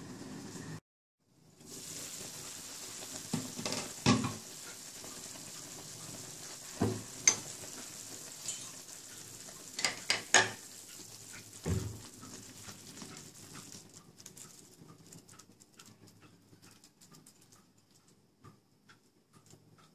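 Kangkong (water spinach) boiling in a pot of water: a steady bubbling hiss, broken by several sharp knocks against the pot. The hiss fades over the last few seconds.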